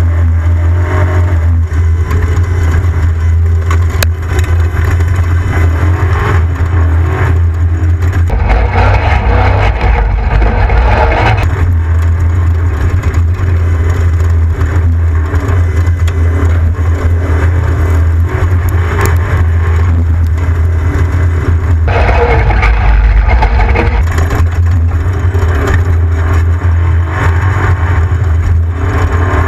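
Off-road race vehicle's engine running hard in a loud, steady drone, growing rougher and louder for a few seconds about eight seconds in and again about twenty-two seconds in.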